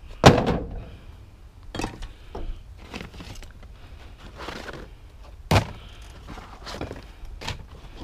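Old wooden boards knocking and clattering as they are handled and dropped onto scrap in a plastic tub. A heavy thunk comes just after the start, a sharp knock about five and a half seconds in, and lighter knocks between.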